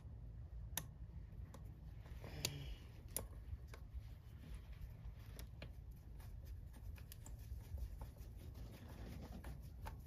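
Screwdriver turning a grounding screw into a floodlight socket's cover plate: faint, scattered small clicks and scrapes of metal, with a few sharper ticks in the first few seconds, over a low rumble.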